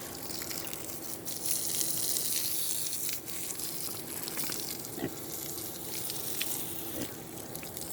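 Water spraying steadily from a hose, a continuous hiss of cold spring water wetting pigs down.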